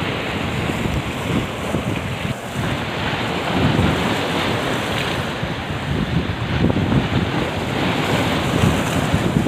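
West-monsoon wind buffeting the microphone over a choppy sea, gusting unevenly, with waves churning beneath it.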